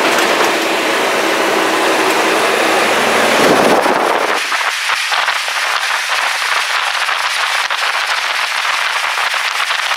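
Fire truck driving, with engine and road noise heard in the cab. From about four seconds in the engine drops out beneath a steady rush of wind over the microphone, with crackling buffets.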